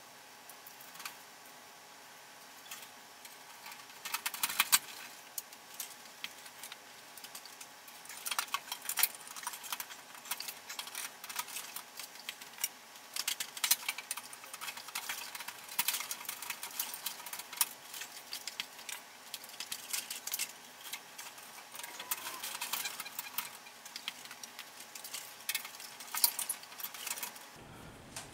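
Irregular light clicks, rattles and rustles of electrical wires and twist-on wire connectors being handled while a fluorescent light fixture is rewired.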